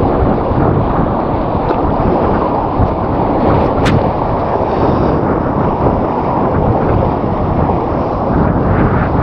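Rushing whitewater of a grade 2+ river rapid heard from a kayak, a steady loud rumble mixed with wind buffeting the microphone, with one sharp tap a little under four seconds in.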